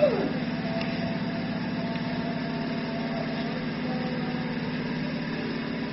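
A falling tone dies away at the very start, then a steady low mechanical hum runs on with no other event.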